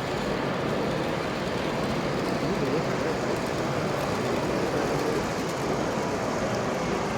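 Steady exhibition-hall ambience: a continuous murmur of voices mixed with the running rumble of model trains on the layouts.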